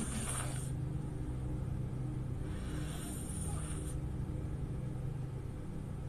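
Open-mouth snoring of a sleeping woman: an airy breath at the start and another from about two and a half seconds in, each about a second long, over a steady low rumble.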